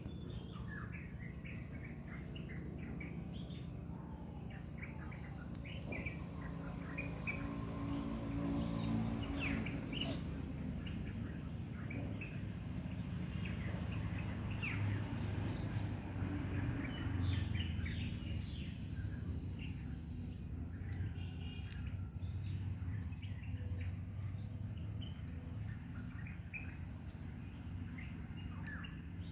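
Outdoor ambience: many short bird chirps scattered throughout, over a steady high insect drone and a low rumble that grows a little louder midway.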